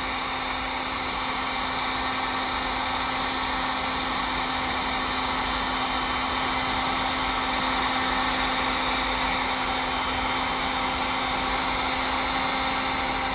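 Electric hot-air blower running steadily on high, a constant rush of air with a steady hum beneath it, blowing heat on a frozen water line to thaw it.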